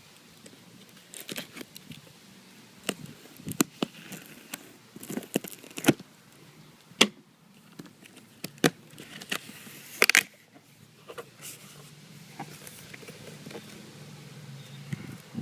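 Cardboard box being opened and unpacked by hand: irregular rustling, crinkling and tearing, with knocks and sharp snaps of cardboard flaps and packaging, the loudest cluster about two-thirds of the way through.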